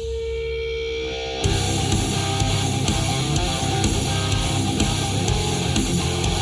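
Instrumental heavy-metal-style music with electric guitar, played through a loudspeaker and picked up by microphone. Near the start the band drops back to a single held note, then comes crashing back in full about a second and a half in.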